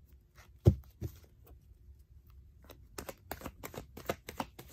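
A tarot deck being shuffled by hand: a single thump about a second in, then a quick run of card flicks and snaps from about three seconds in.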